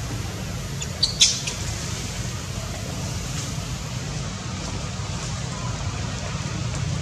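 Steady low wind rumble on the microphone, with one brief, sharp high-pitched chirp about a second in.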